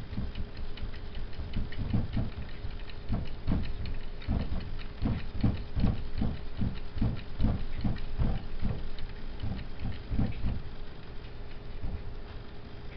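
A cat's paw patting against a wall mirror, a quick run of soft taps about three a second that thins out near the end.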